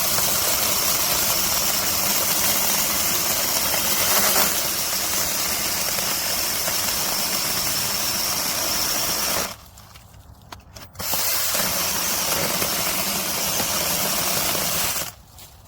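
Brushless battery mini chainsaw with a 6-inch bar cutting through a hardwood trunk about 6 inches thick, the chain running at full speed and biting into the wood. The cutting stops for about a second and a half partway through, then resumes and stops again near the end.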